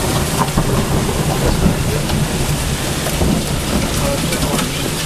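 Hail and heavy rain pelting a lawn and concrete steps: a dense, steady hiss with scattered sharp ticks of hailstones striking, over a steady low rumble.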